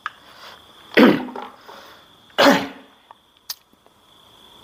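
A man coughs twice, about a second and a half apart, followed by a small click, over a faint steady high whine.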